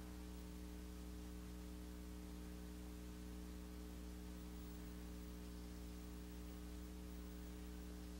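Faint steady electrical hum with a low buzz of overtones and a background hiss, unchanging throughout: the recording's mains hum and tape noise, with no other sound.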